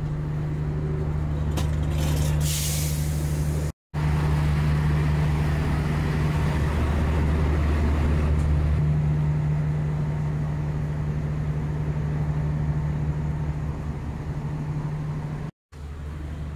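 A train's diesel engine idling with a steady, deep drone. A short hiss of released air comes about two and a half seconds in.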